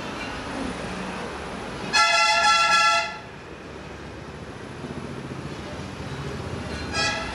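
A horn sounds one loud, steady, high toot lasting about a second, then a second toot starts near the end, over a low steady background noise.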